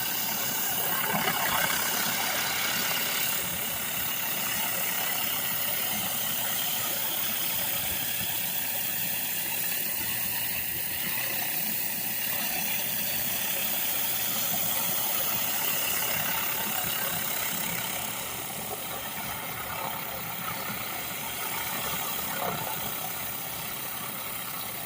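Commercial pressure washer's engine running steadily while the surface cleaner sprays water across concrete, a continuous engine drone with spray hiss. It is a little quieter over the last several seconds.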